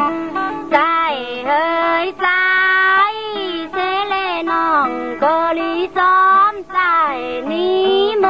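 A woman singing Tai Lue khap (khap soen courtship song) in a high voice, in long phrases of sliding, wavering notes broken by short breaths.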